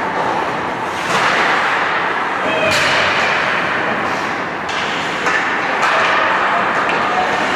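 Ice hockey game sounds in an arena: a steady wash of skates scraping the ice, with sharp clacks of sticks on the puck, the loudest a crack about three seconds in.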